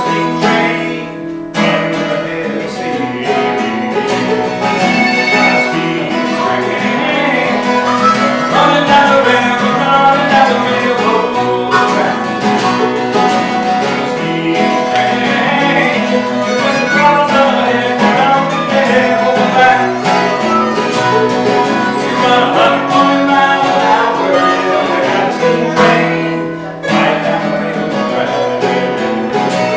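Acoustic folk trio playing an instrumental break: harmonica playing over a strummed acoustic guitar and mandolin. The music drops back briefly twice, about a second and a half in and again near the end.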